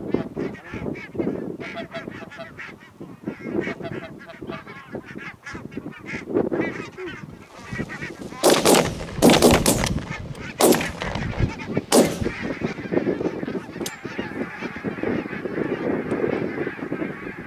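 A flock of barnacle geese calling with many short, yapping honks. From about eight to twelve seconds in, several shotgun shots fire in quick succession over the calling.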